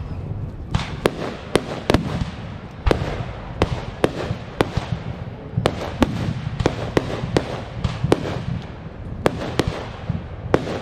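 Fireworks display: nearly twenty sharp bangs at irregular intervals, some in quick pairs, over a continuous crackling haze and low rumble.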